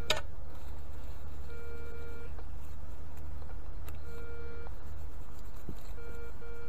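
Garrett ACE 250 metal detector sounding three short, steady mid-pitched beeps about two seconds apart as the coil passes over targets. A click comes just after the start, and a steady low rumble runs underneath.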